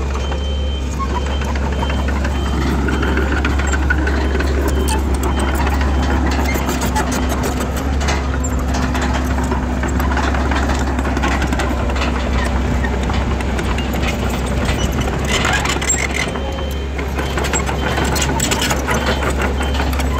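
Komatsu crawler bulldozer's diesel engine running steadily under work, with frequent short knocks and clanks over a heavy low rumble.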